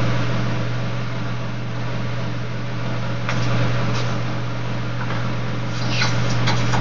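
Electric fan running on high: a steady hum with a rush of air. A few light clicks about three, four and six seconds in.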